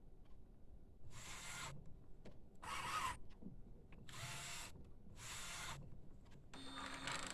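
Epson 1400-based inkjet printer going through its power-on automatic head clean: its motors whir in about five short bursts as the carriage and ink pump work, with a longer run near the end. The head clean means the newly fitted cartridges have been recognised.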